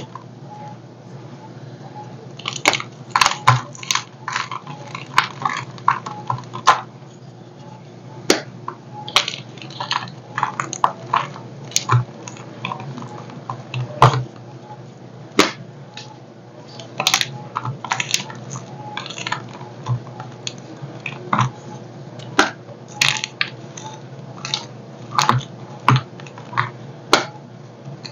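Dyed gym chalk blocks crunched and crumbled by hand, one pressed and broken against the other. Irregular sharp crunches and snaps come in clusters, with softer crumbling between them.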